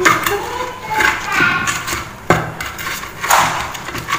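Pestle knocking and grinding in an earthenware mortar (cobek), crushing tomatoes and chillies for sambal, with sharp knocks near the start and a little past halfway.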